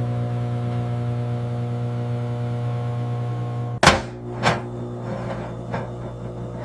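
Microwave oven running with a steady electrical hum; about four seconds in, a loud sharp click, then a second click half a second later, while the hum carries on.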